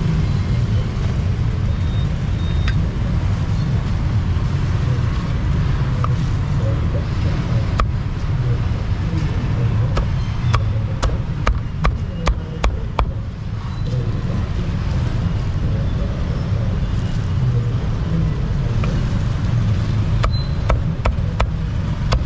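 A cleaver chopping roast duck on a round wooden chopping block: a quick run of about eight sharp chops, roughly two a second, midway, and a few more near the end. A steady low rumble of street traffic runs underneath.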